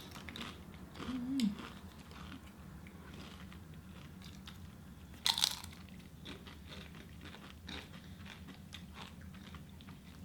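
Crunchy food bitten and chewed close to the microphone, with irregular crisp crunches and the loudest bite about five seconds in. A short hummed "mm" comes about a second in.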